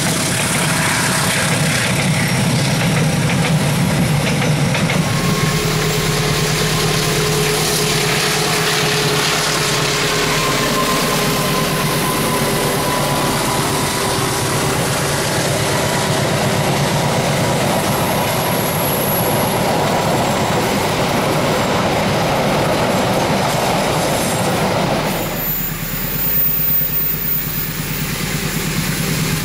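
Passenger train coaches rolling past on a curve, steel wheels clattering over the rail joints with a faint squeal from the wheels. About 25 seconds in the sound changes sharply to the steadier, lower hum of an approaching diesel locomotive.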